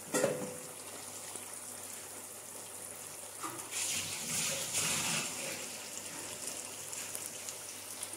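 Amla pickle in spiced oil simmering and sizzling in a pan: a steady soft hiss that swells for a second or so around the middle. A light knock just after the start.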